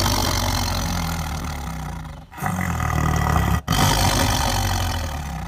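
Tiger snarling and growling over its food in long harsh growls: three in a row, with short breaks about two seconds in and again about three and a half seconds in.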